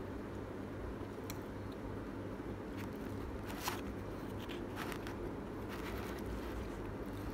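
Close-miked chewing of a spicy chicken drumlet, with soft mouth clicks scattered throughout and one sharper click about three and a half seconds in, over a steady low hum.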